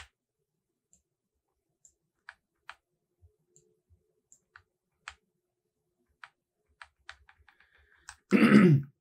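Scattered single clicks from a computer mouse and keyboard, a dozen or so spaced a half-second or more apart, then a quick run of small clicks about seven seconds in. A short, loud burst of voice comes near the end.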